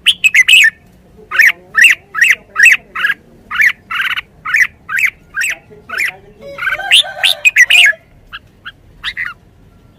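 Red-whiskered bulbul calling: a run of short, sharp repeated notes, about three a second, that crowd into a dense jumble about seven seconds in. A few scattered notes follow.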